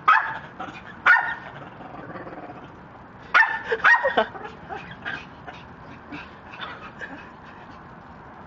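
Dog barking: sharp barks at the start, about a second in and a quick pair around three and a half seconds, then fainter yips.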